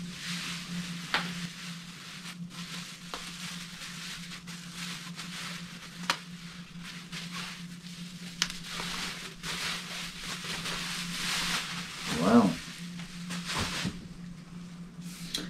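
Plastic bubble wrap rustling and crinkling with scattered sharp crackles as it is pulled off an electric guitar. A steady low hum runs underneath.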